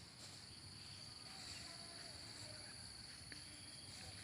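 Faint, steady high-pitched chirring of insects, a constant outdoor insect drone with no other clear sound.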